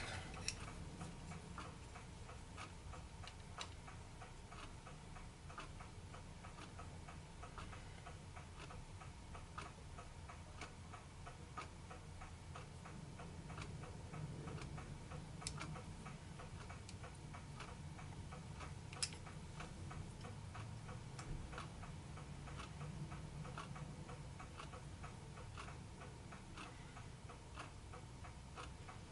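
Faint, regular ticking, a few ticks a second, over a low steady hum.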